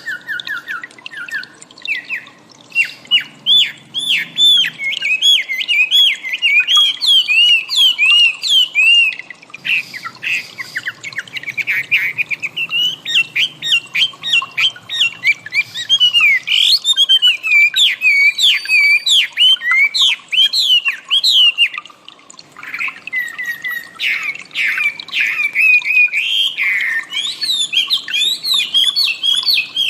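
Wambi bird singing a continuous, rapid run of short, sharp up-and-down chirps, pausing briefly twice.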